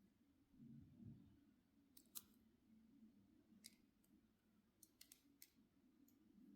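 Near silence with a low steady hum, broken by about eight faint, sharp clicks scattered through the middle.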